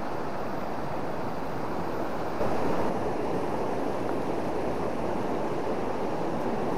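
River running high in flood, a steady rush of fast-flowing water, briefly louder for about half a second a little over two seconds in.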